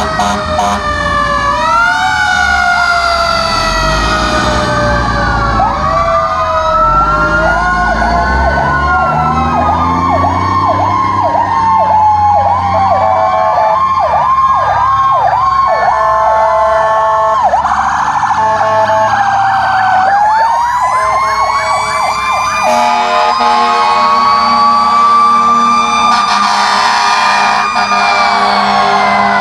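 Several fire truck sirens sounding at once in overlapping wails that rise and fall, with a fast warbling yelp in the middle. A steady horn-like blare joins about two-thirds of the way through.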